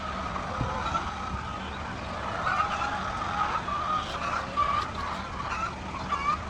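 Chickens in a henhouse calling and clucking, a run of short pitched notes one after another, over a low steady hum.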